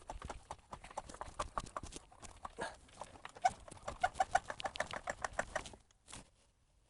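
A jack being pumped up under the car to compress the suspension: a run of quick clicks with short squeaks, which stops about six seconds in.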